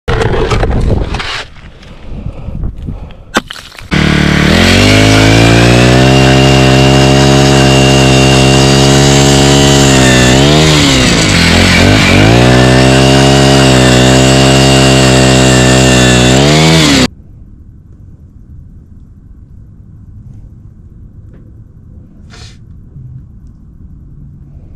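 Small gas engine running hard at high speed. Its pitch sags briefly partway through and then recovers, and the sound cuts off suddenly. Irregular loud noise comes just before the engine starts.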